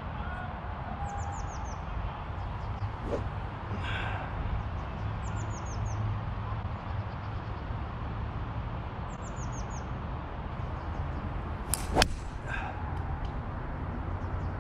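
Golf club striking a ball off the tee: one sharp crack about 12 seconds in, the loudest sound. Before it, a small bird sings three short runs of quick, falling high chirps over a steady low background rumble.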